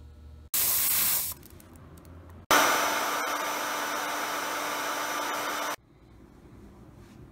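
Two abrupt bursts of loud rushing hiss: a short one under a second long, then a steady one of about three seconds with a faint hum running through it.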